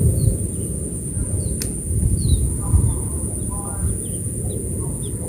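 Steady high-pitched drone of insects with short bird chirps scattered through it, over a low rumble on the microphone. One sharp click about a second and a half in.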